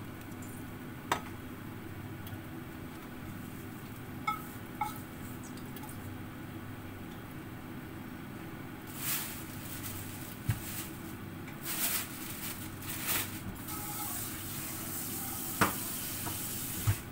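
Food sizzling in a hot pan on a gas stove over a steady hum, with a few sharp clinks of utensils on cookware. Louder spells of hissing spatter come in the second half.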